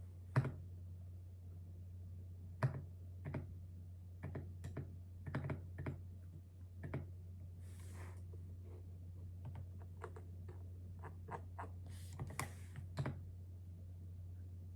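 Typing on a keyboard: irregular key clicks, sometimes single and sometimes in quick little runs, with pauses between, over a steady low hum.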